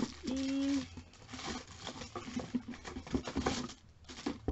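Light clicks and rustling of packaging being handled, with a short steady hum about a quarter of a second in.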